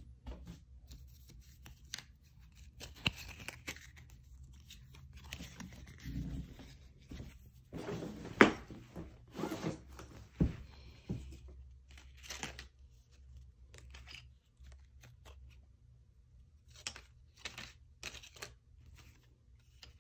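Objects being rummaged through by hand: scattered rustles, crinkles and light knocks of paper, cards and plastic being moved about. A busier stretch of rustling comes about eight seconds in, with one sharp click, the loudest sound.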